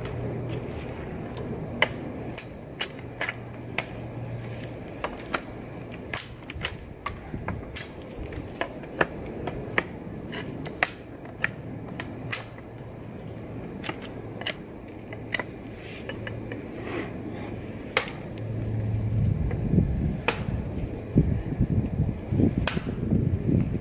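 A Bark River Bravo Crusader knife chopping into a dry wooden pole: many sharp, irregular knocks of the blade striking wood, about one to two a second. A louder low rumble comes in for the last few seconds.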